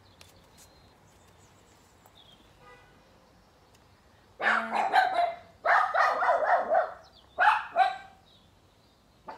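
A dog barking in three loud runs of barks, starting about four seconds in and stopping about eight seconds in.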